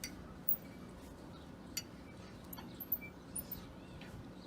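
Scattered light metallic clicks and clinks of a lug wrench working lug nuts off a car wheel.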